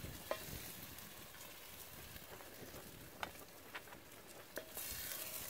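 Campfire burning under a pot of pork and beans: a steady hiss broken by a few sharp crackling pops, the hiss growing louder near the end.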